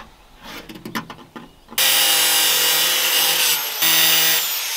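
Angle grinder with a cut-off disc starting up about two seconds in and cutting thin metal sheeting: a loud, steady whine over a hiss. Near the end it is let off and winds down, its pitch falling.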